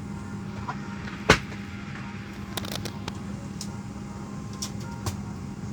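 Steady hum of an airliner cabin during boarding, with scattered clicks and knocks. One sharp, loud knock comes about a second in, and a few lighter clicks follow.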